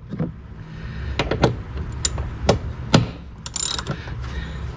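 Stanley hand ratchet and socket handled against metal: a series of separate sharp metal clicks and taps as the socket is snapped on and fitted, with a short burst of fast ratchet clicking about three and a half seconds in.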